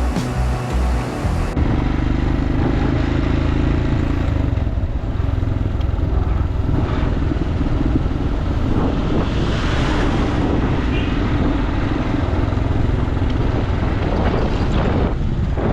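Motorcycle engine running steadily on the move, with wind buffeting the rider's microphone.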